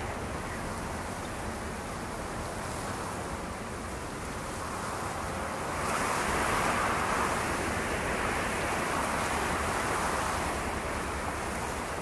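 Gusty wind buffeting the microphone: a steady rushing noise that swells about halfway through as a gust picks up.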